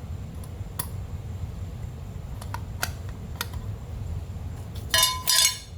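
Handling of metal tools and fan-motor parts: a few light clicks, then a loud metallic clinking in two quick bursts near the end, over a steady low background rumble.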